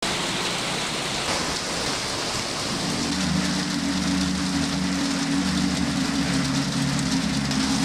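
Rain with small hail falling steadily on wet concrete and grass. A low sustained chord joins about three seconds in.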